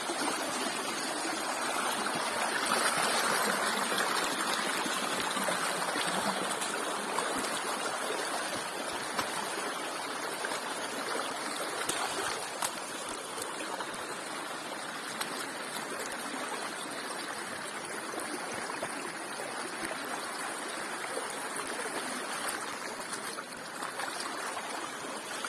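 Shallow mountain river rushing steadily over stones, a continuous even wash of water, with a few faint knocks.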